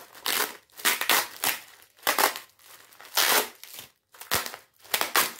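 Clear plastic packaging crinkling and crackling in irregular bursts as it is pulled and worked open by hand, without scissors.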